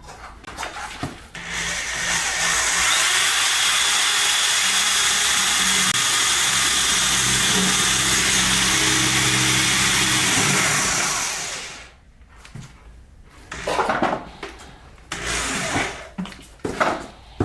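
Power drill running steadily for about nine seconds as it drills a hole in the car's body, then stopping; a few short scraping bursts follow near the end.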